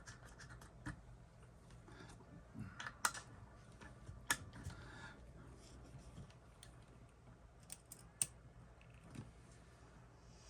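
Scattered small clicks and knocks of a connector and test leads being handled and fitted to an input, over a faint steady low hum.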